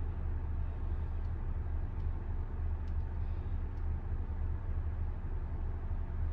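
Steady low hum with a faint hiss inside a parked car's cabin, with a couple of faint ticks.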